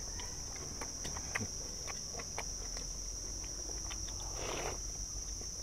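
Insects chirring, a steady high drone, with faint clicks of chopsticks and spoons against metal bowls and a short slurp of noodles about four and a half seconds in.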